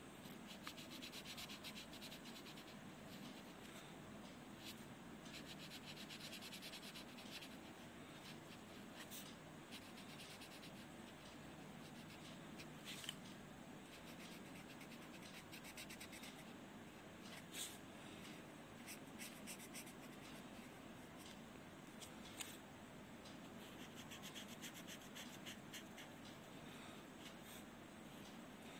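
Faint scratching of a felt-tip marker colouring in on paper in quick short strokes, with a few sharper ticks of the tip on the page.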